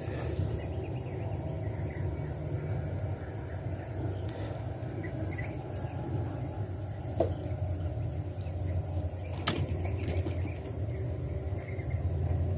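Insects calling with one unbroken high-pitched trill over a low steady rumble. A single sharp click sounds about nine and a half seconds in.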